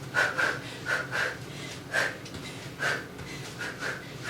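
A person breathing hard with short, sharp exhalations, often in quick pairs, the exertion breathing of someone throwing punches and kicks in a cardio kickboxing interval.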